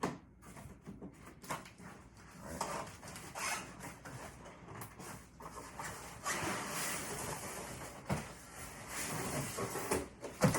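Table-saw parts and packing material being handled during unboxing: rustling of packaging with scattered knocks and clunks, the sharpest right at the start and again near the end.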